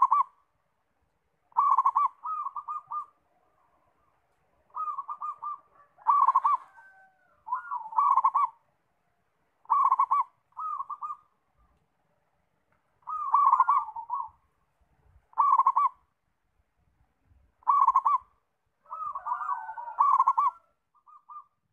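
Zebra dove (perkutut) singing: repeated phrases, each opening with a sharp note and running into a quick rolling trill of coos, about one phrase every two seconds.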